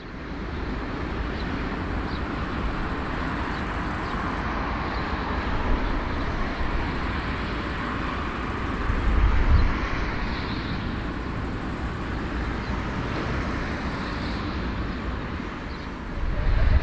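Steady noise of a large aircraft's engines with a deep low rumble, swelling briefly about nine seconds in and again near the end.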